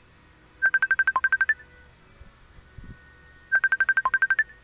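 Facebook Messenger incoming video-call ringtone on a phone: two quick runs of about ten short electronic beeps, about three seconds apart. Most beeps are on one pitch, with one lower note and a slightly higher last note in each run.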